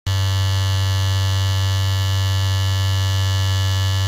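Electric football game's vibrating metal field buzzing steadily, a low electric hum that switches on and cuts off abruptly.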